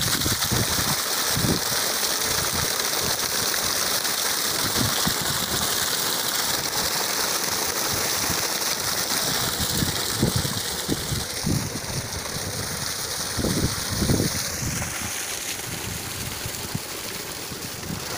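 Water from a TATA 7.5 hp solar pump gushing out of an open black delivery pipe and splashing onto sandy ground: a steady rushing hiss, with wind buffeting the microphone. The rush gets softer about three-quarters of the way through.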